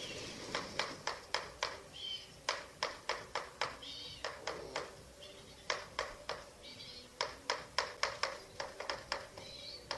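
Young Eurasian eagle-owls snapping their bills: runs of loud, sharp clicks, several a second, broken by short pauses, with faint short high calls in between.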